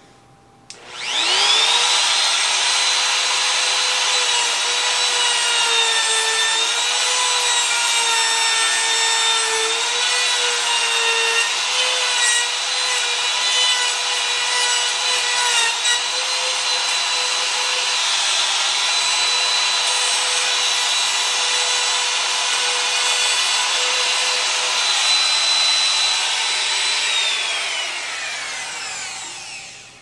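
Compact router starting up less than a second in and running at full speed with a steady high whine as its bit cuts a latch mortise in pine. Its pitch sags several times in the middle as the bit bites into the wood, and it winds down over the last few seconds.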